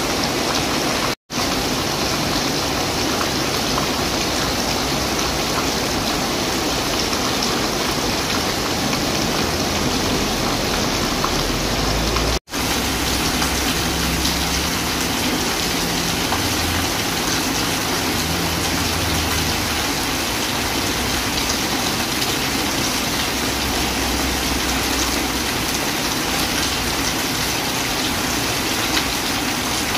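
Steady rain pouring down and splashing on wet paving and puddles, broken by two brief dropouts to silence, about a second in and about twelve seconds in.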